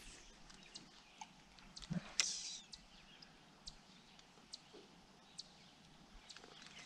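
Faint open-air quiet with scattered short high ticks or chirps, and a soft knock followed by a brief hiss about two seconds in.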